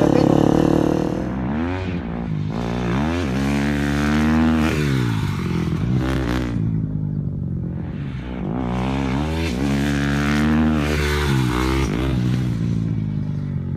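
Motocross bike engine revving hard, its pitch climbing in steps as it shifts up and then dropping away. This happens twice, with a short burst of throttle in between.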